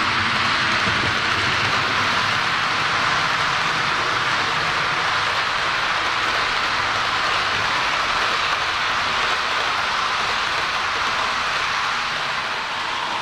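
H0-scale model train, a steam locomotive hauling a long rake of passenger coaches, rolling along the layout's track with a low rattling rumble that thins out as the last coaches pass. A steady hiss sits under it.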